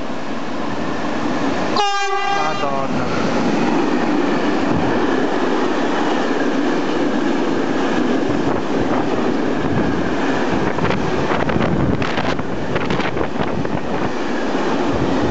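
Electric freight locomotive passing through the station sounds a very loud horn blast for about a second, about two seconds in. A long train of empty flat wagons then rumbles and clatters steadily past on the rails, with sharper wheel knocks near the end.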